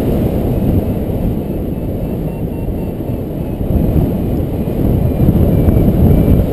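Airflow buffeting the microphone of a paraglider in flight: a steady, loud low rumble of wind noise. Faint short beeps from the flight variometer sound now and then above it.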